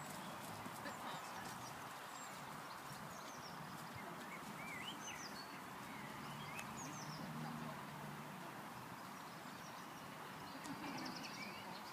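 Quiet outdoor ambience: a steady low hiss with small birds chirping now and then, most of the chirps around the middle.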